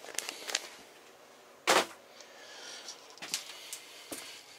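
A few light clicks and knocks from things being handled, with one louder knock just under two seconds in.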